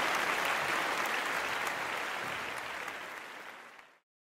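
Audience applauding, a dense steady clapping that fades over the last second and stops dead about four seconds in.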